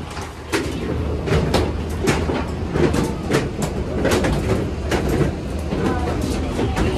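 Footsteps and irregular knocks of passengers walking through an airport jet bridge, about two a second, over a steady low rumble.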